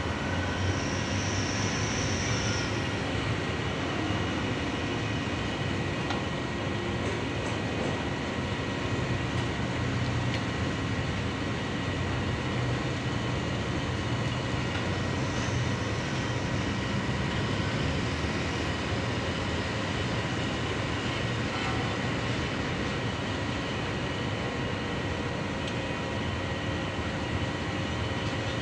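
Steady mechanical hum and rumble with a few constant whining tones, unchanging throughout, with a brief high tone about a second in.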